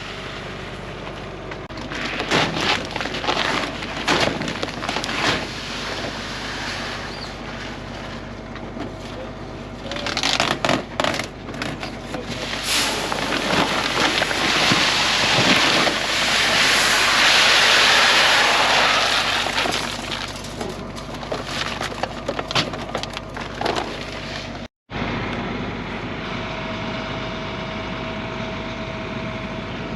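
Seed being loaded into a grain drill: clattering and knocking, then a long rushing pour that swells and fades over several seconds.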